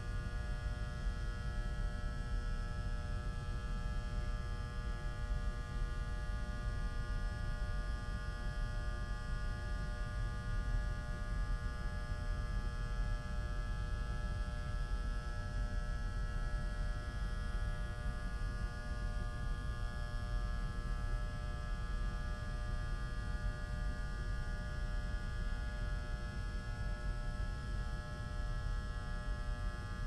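Electric lights buzzing steadily with a mains hum, echoing in a large room. The buzz holds an even pitch over a low rumble and does not change.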